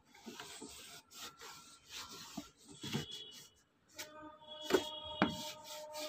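Dry cloth rubbing over the plastic inside the detergent-drawer recess of an IFB front-load washing machine, in repeated wiping strokes about once a second. From about four seconds in, some strokes squeak on the plastic.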